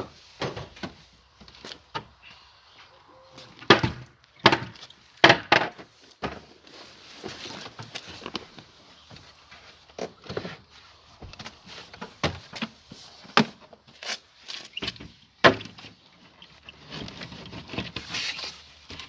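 Irregular knocks, clicks and clatter, several sharp and loud, with quiet gaps between them.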